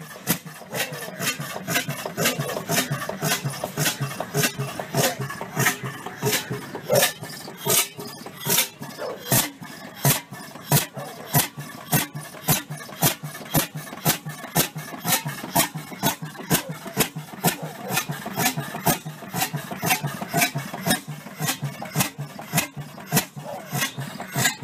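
Bessemer oil-field engine running after its first start in 50 years, firing in a steady slow beat of sharp exhaust pops, about two to three a second.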